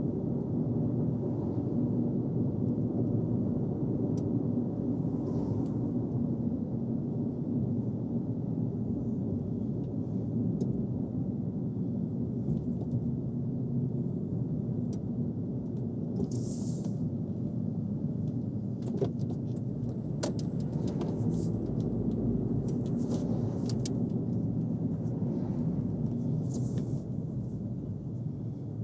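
Car driving: steady low road and engine rumble, with a brief hiss and a scatter of short clicks in the second half.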